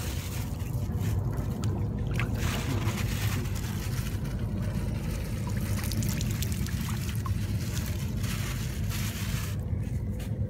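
Water splashed by hand over bamboo tubes and wet mud, a continuous splashing and dribbling that stops about a second before the end, over a steady low rumble.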